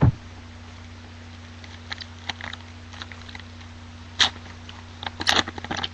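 Trading-card foil packs being torn open and their wrappers crinkled as the cards are pulled out: a low thump at the start, scattered short crackles, then a sharp tearing rasp about four seconds in and a cluster of them just after five seconds, over a steady low electrical hum.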